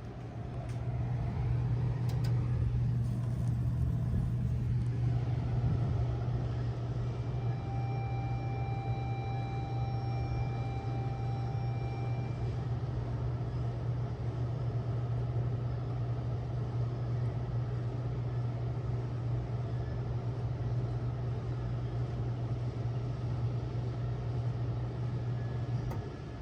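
1996 Bard 3-ton wall-hung heat pump running in cool mode: a steady low hum that builds up in the first second and cuts off near the end as the unit shuts down. A faint thin high tone sounds for a few seconds about a third of the way in.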